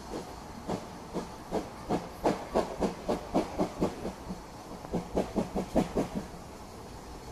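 GWR 56xx class 0-6-2 tank locomotive working under steam: a run of sharp exhaust beats over a steady hiss, about two a second at first and quickening to about four a second, with a brief break just past the middle before the beats resume.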